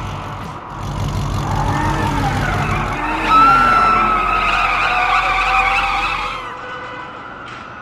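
Cartoon vehicle sound effects: a low engine rumble with tyre squealing that starts about a second and a half in, is loudest a little after three seconds, and fades out near the end.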